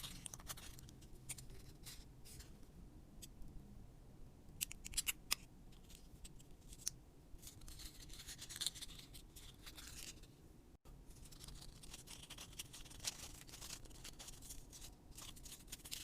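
Faint handcraft sounds: scattered sharp snips and clicks of scissors, with soft rustling and scraping of craft materials being handled.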